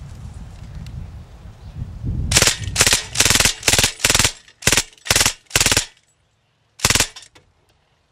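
Belt-fed WWII German machine gun firing blanks in short bursts: about eight quick bursts in a row, then one more after a pause of about a second.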